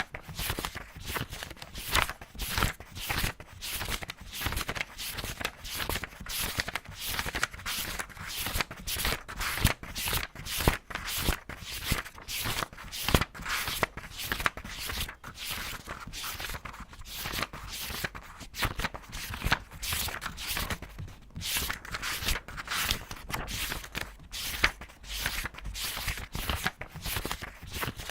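Paper pages of a book being flipped in quick succession, a rapid run of crisp swishes and flaps, several a second.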